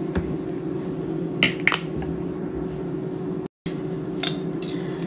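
A few short clinks of dishes and utensils, about one and a half seconds in and again a little after four seconds, over a steady background hum. The sound cuts out completely for a moment about three and a half seconds in.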